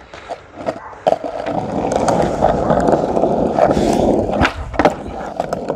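Skateboard wheels rolling on rough alley asphalt, the rumble building from about a second in. Near the end come a few sharp knocks as the tail is popped for a flip trick and the board clatters back onto the pavement.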